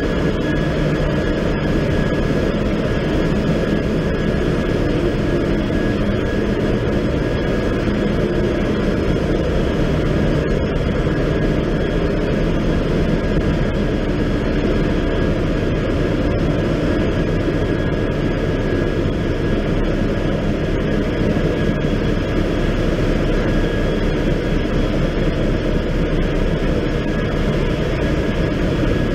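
Loud, steady engine-room din of a cargo ship's running machinery beside its auxiliary diesel generator sets: a dense, unbroken rumble with a thin steady whine on top.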